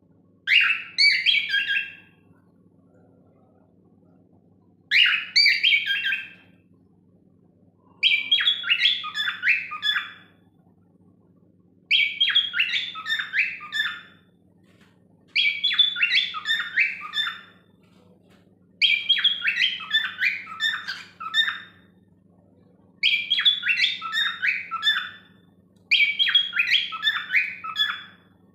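Cockatiel song: eight warbling, chirping phrases, each about one to three seconds long, repeated every three to four seconds with short pauses between. A faint steady low hum runs underneath.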